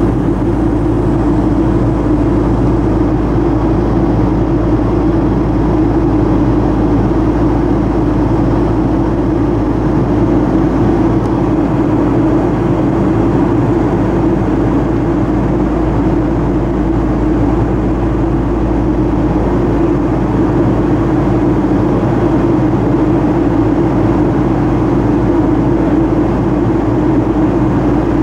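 Steady cabin drone of a jet airliner in flight: engine and airflow noise with a strong low hum and a deep rumble beneath, unchanging throughout.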